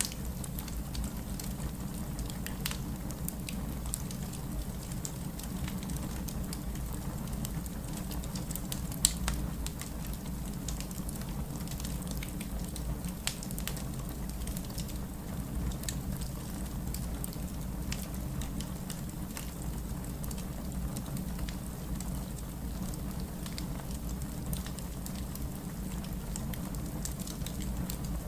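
Fireplace fire crackling: a steady low rumble of burning with scattered snaps and pops throughout, one sharper pop about nine seconds in.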